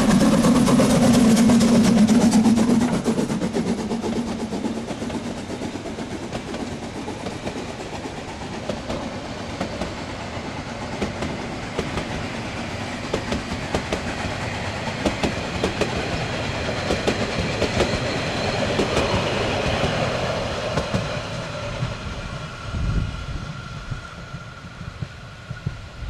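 HSB class 99.72 narrow-gauge steam locomotive passing close, loudest in the first few seconds, followed by its coaches rolling by with a clickety-clack of wheels over the rail joints. The clatter fades as the train moves away.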